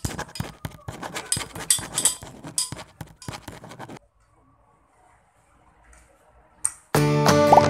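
Irregular scraping and clinking of kitchen utensils during food prep for about four seconds. Then near silence with a single click, and background music starting near the end.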